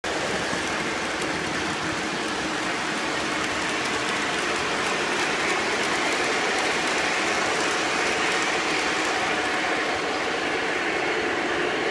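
Several three-rail model trains running on the layout's metal track: a steady rumble of wheels and motors with fine clicking from the rails.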